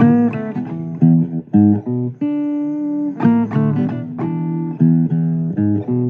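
Guitar playing a blues: a run of plucked single notes and chords ringing out one after another.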